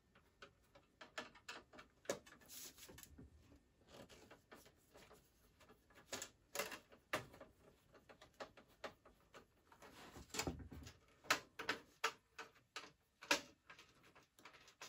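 Screwdriver taking sheet-metal screws out of an iMac G3's metal shield: faint, irregular small metal clicks and ticks, with a duller knock about ten seconds in.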